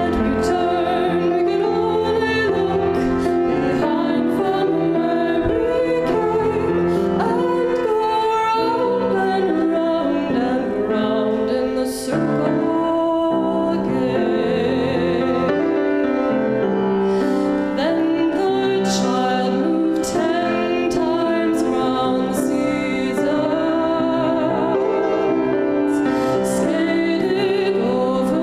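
A woman singing solo with vibrato, accompanied by piano.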